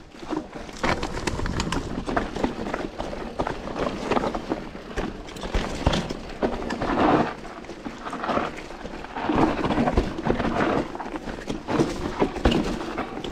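Mountain bike riding over rough, stony trail: tyres crunching on loose ground and the bike rattling, with many irregular knocks and clicks.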